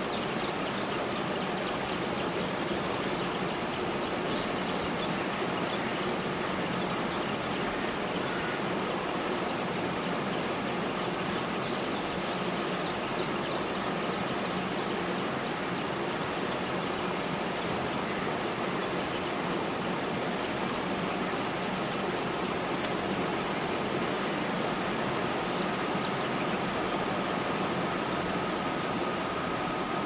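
Steady, even rushing hiss with no bird calls, and a faint steady high tone that becomes clearer over the last few seconds.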